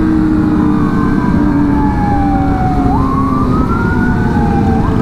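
A siren wailing, its pitch sliding slowly down and then back up, over a steady low rumble of motorcycle engines on the road.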